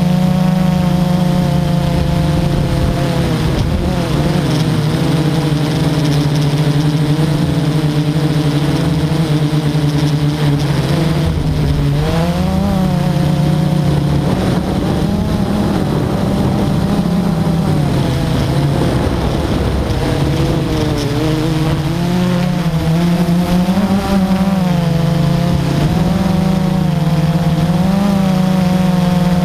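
Quadcopter drone's electric motors and propellers humming steadily, the pitch rising and falling every few seconds as the drone manoeuvres.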